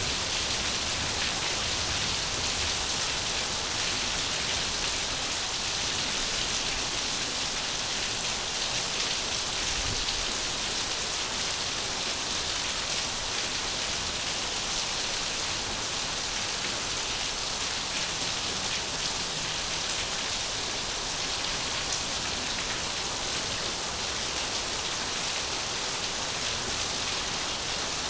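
Steady rain falling, an even wash of drops that neither builds nor fades.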